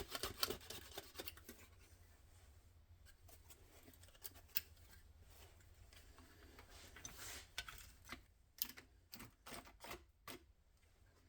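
Faint scraping and scattered light clicks, with a short run of clicks near the end: old sealant being scraped off the edge of a plastic brake-light housing.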